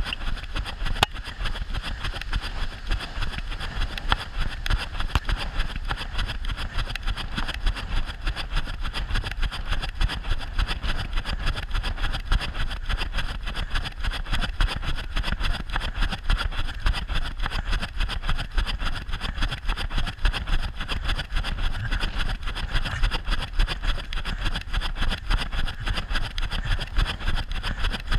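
Steady rattling rumble of a small wheeled vehicle rolling along concrete pavement.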